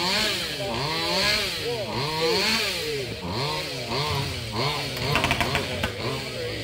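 Racing chainsaw's two-stroke engine being revved up and down in quick throttle blips, over and over, with a few sharp cracks about five seconds in.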